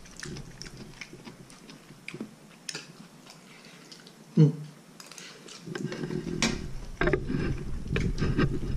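Metal spoons clinking now and then against plates and bowls, with chewing during a meal. About halfway there is one short vocal sound, and low voices murmur through the last few seconds.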